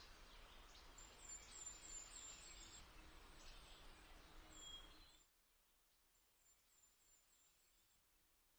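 Faint outdoor ambience of small birds chirping in quick runs of short, high notes over a hiss of background noise. The hiss drops away about five seconds in, leaving fainter chirps.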